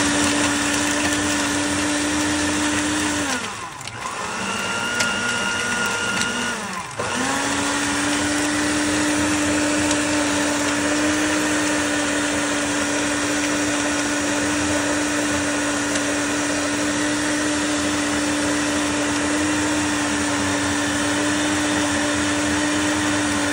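Hamilton Beach countertop blender running steadily, blending a smoothie. About three seconds in its motor drops to a lower pitch, and about seven seconds in it climbs back up and holds steady.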